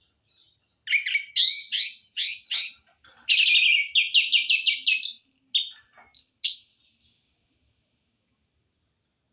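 A songbird singing a varied phrase of quick sweeping notes. Partway through it runs into a fast, even trill, then ends with a few rising notes.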